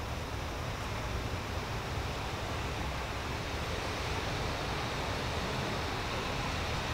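Steady wind noise on the microphone: an even rushing hiss with a low rumble underneath.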